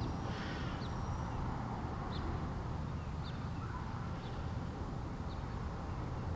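Short high bird chirps about once a second over a steady low rumble.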